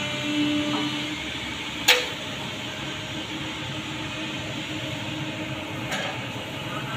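Caterpillar 307 mini excavator running steadily with a droning tone while it lifts a concrete box culvert on chains. A single sharp metallic clank about two seconds in, and a fainter knock near the end.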